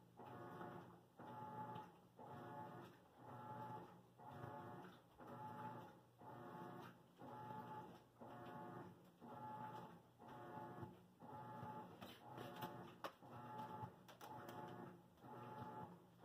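Washing machine agitating: a faint motor whine that swells and dies away about once a second, over and over. A few light clicks come about twelve to thirteen seconds in.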